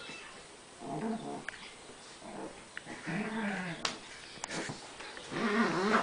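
Chihuahua growling in play: three wavering growls about two seconds apart, the last the loudest, with a few light clicks between them.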